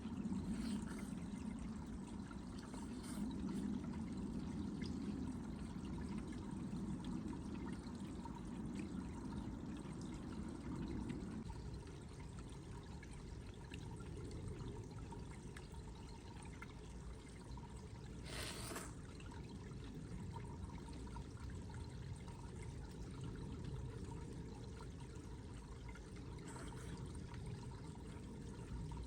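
Water trickling steadily, with a low rumble that drops away about eleven seconds in. A single brief clatter comes near the middle.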